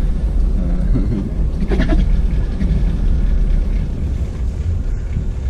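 Low steady rumble of an off-road 4x4's engine running, heard from inside the cab. Brief raised human voices come in about one and two seconds in.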